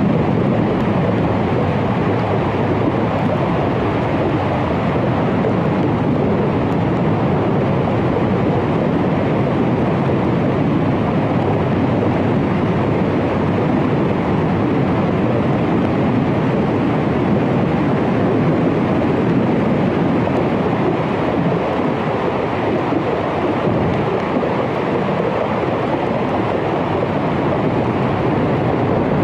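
Underwater hydrophone recording of a melting glacier: a steady, dense crackle and hiss that does not let up.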